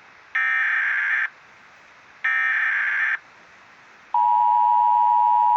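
Emergency Alert System SAME header: two buzzy digital data bursts about a second long, each followed by about a second of quiet, then about four seconds in the steady two-tone EAS attention signal starts and holds, announcing a civil emergency message.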